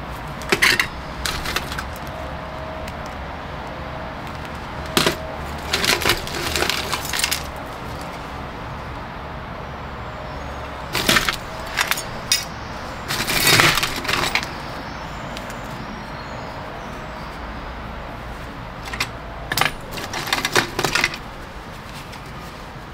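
Small pieces of mixed metal dross and slag clinking and rattling together as they are handled, in four short bursts of clatter over a steady low hum.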